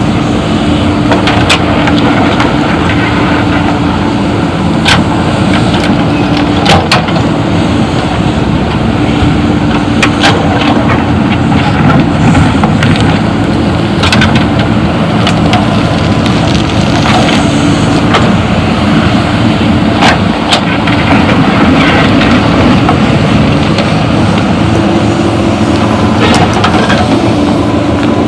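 Heavy diesel engine of earth-moving machinery running steadily with a low drone, with sharp knocks now and then.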